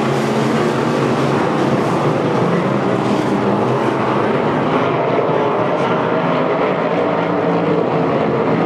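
Dirt modified race car engines running at speed in a steady, unbroken drone, with the engine pitch wavering as the cars work the track.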